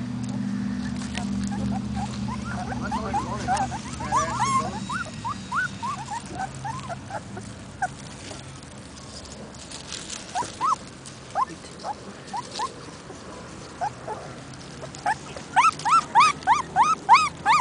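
Two-week-old Siberian husky puppies whimpering: short, high cries in scattered runs, coming thickest and loudest near the end.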